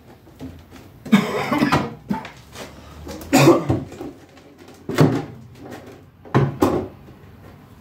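A heavy granite-composite sink knocking and scraping as it is lifted, carried and stood against a wall. There are four separate bumps, the first two drawn-out scrapes and the last two short knocks.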